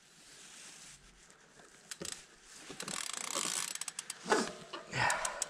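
Mountain bike chain being put back on after it came off: metallic clicking from the chain and drivetrain as it is fitted and the cranks are turned. There is one click about two seconds in, then a quick run of clicks, then louder handling sounds near the end.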